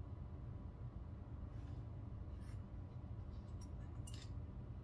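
Faint clicks and light scraping of small knife parts handled in the fingers: the steel liner with its omega spring being fitted against the handle of a Benchmade Mini Bugout, with the clearest click about four seconds in, over a low steady hum.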